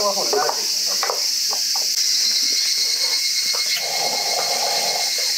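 Steady, high-pitched chorus of insects droning without pause, with a few soft clicks and a brief rushing hiss about four seconds in.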